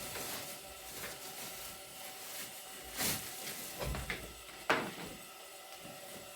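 A few scattered knocks and clicks over a faint background, the sharpest about three-quarters of the way through.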